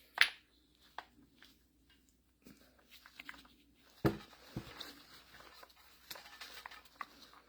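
Metal parts of a hydraulic gear pump being handled and fitted together by hand: scattered light clicks and rattles, a sharp click just after the start and two heavier knocks about four seconds in.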